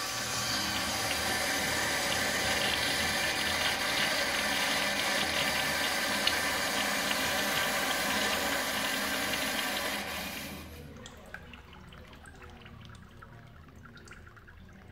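Wall urinal's flush valve (flushometer) flushing: a steady loud rush of water into the bowl, which falls off about ten seconds in to a quieter trickle and drips as the bowl drains.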